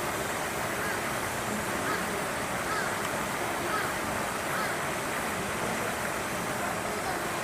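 Steady outdoor background hiss with faint short chirps about once a second.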